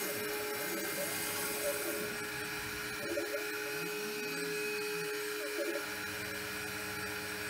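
DIY five-axis CNC router at work carving XPS foam: the spindle holds a steady whine while the stepper motors' tones glide up and down as the axes move and the head tilts.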